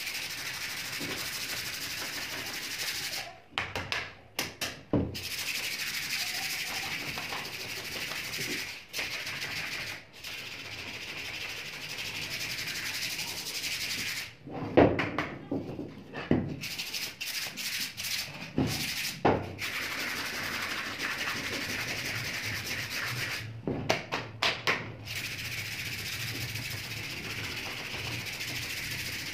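Sandpaper rubbed by hand over a wooden shotgun stock: steady scratchy sanding that pauses briefly three times, with a few knocks as the stock is shifted.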